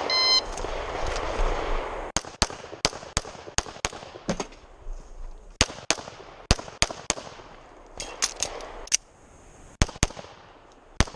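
Shot timer's start beep, then after about two seconds a string of semi-automatic pistol shots fired in quick pairs and clusters as the shooter engages several targets.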